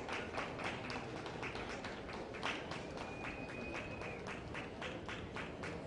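Rhythmic hand clapping from spectators, a quick steady beat of about five claps a second, with a thin high tone held for about a second midway.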